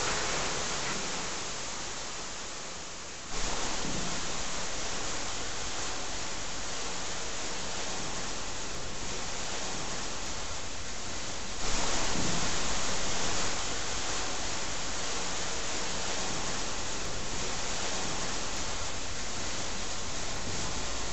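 Steady hissing noise with no tone or rhythm in it. It jumps up in level suddenly about three seconds in, and is louder again for about two seconds near the middle.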